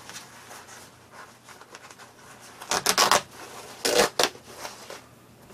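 A dull knife scraping and sawing at the sealed edge of a cloth package, with rustling of the fabric as it is worked open. A few short, louder rasping strokes come about three seconds in and again about a second later.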